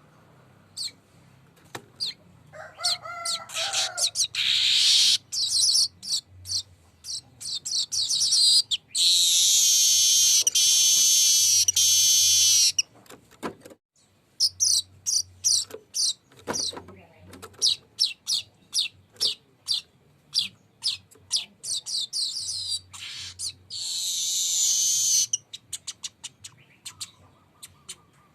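Weaver bird (manyar) singing: runs of quick sharp high chips building into long buzzy rolled trills. The longest roll comes about a third of the way in and a shorter one near the end.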